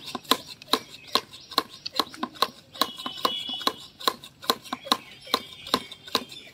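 A 2-litre hand-pumped pressure sprayer being pumped to build up pressure: a steady run of sharp clicks and knocks from the plunger strokes, about three a second.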